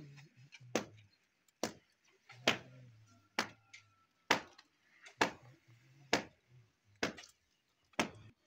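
Stiff push broom slapping down and scrubbing through wet two-component waterproofing slurry on a concrete slab, a sharp slap about once a second as each stroke lands.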